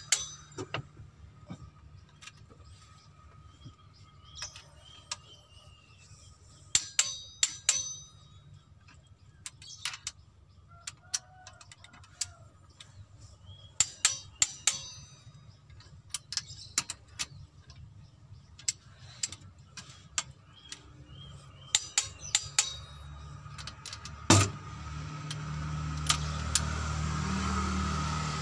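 Sharp metallic clicks and taps of hand wrenches on engine cylinder head bolts, in scattered clusters of two to four, as a ratchet and a torque wrench are set on, pulled and ratcheted while the head bolts are torqued and checked. A low rumble builds over the last few seconds.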